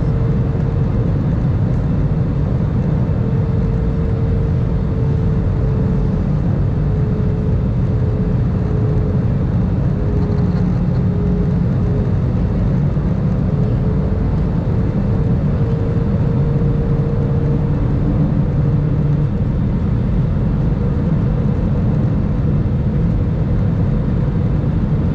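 Airbus A320 cabin noise heard from a window seat on the arrival descent: a steady low rumble of jet engines and airflow, with a humming engine tone that drifts slightly up and down in pitch.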